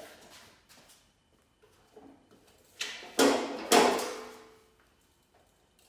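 Metal clanking: a few sharp clunks of steel being handled and set against the chop saw, the loudest two about three seconds in, the last ringing out for about a second.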